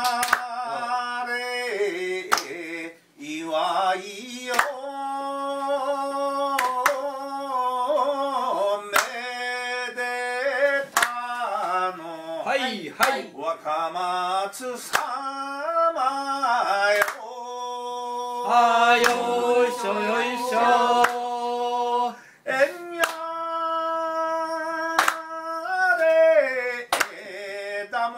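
Unaccompanied singing in long, drawn-out held notes that slide from pitch to pitch, with a small group clapping along, a sharp clap every second or two.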